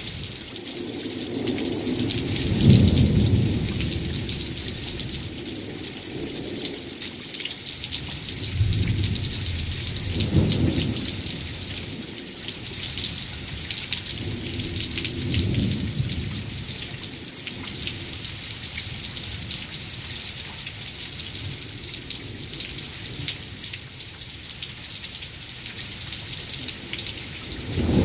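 Heavy rain falling steadily with a constant hiss, while thunder rumbles in several long low rolls. The loudest roll comes a few seconds in, with further ones near the middle and another starting at the very end.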